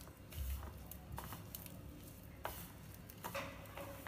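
Faint rustling and squishing of a hand kneading coarse flax-seed and lentil powder into jaggery syrup in a ceramic dish, with light scrapes and clicks of fingers against the dish. A low dull bump about half a second in.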